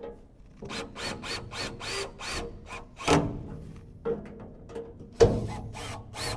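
Cordless drill driving screws into a cabinet panel with a string of short trigger pulses, about three or four a second, each a brief rising-and-falling motor whine. Then come longer, louder bursts about three seconds in and again just after five seconds.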